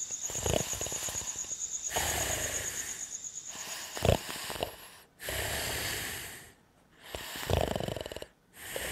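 Cartoon gnome snoring in its sleep: slow, rasping breaths in and out about every one and a half seconds, with a couple of short snorts.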